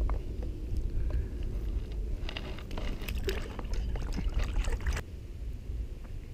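Largemouth bass let go over the side of a canoe: water splashing and sloshing for about three seconds from about two seconds in, stopping suddenly, over a low wind rumble on the microphone.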